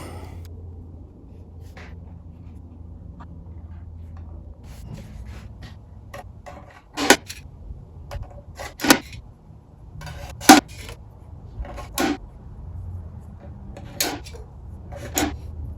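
Small steel drawers of a shop-made tool chest being slid and knocked shut, a sharp clack every second or two after the first few seconds, over a low steady hum.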